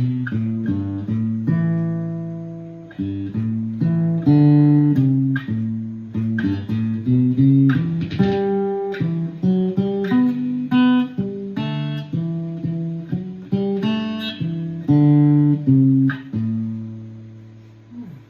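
Octave mandolin tuned in fifths, playing a plucked single-note melody in a steady rhythm. Near the end the final note is left to ring and fade.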